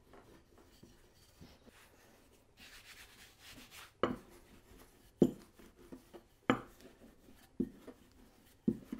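Wooden rolling pin rolling out thin noodle dough on a floured wooden board: a soft rubbing, then a dull knock of wood on wood about once a second as each stroke comes down, five in all from about halfway through.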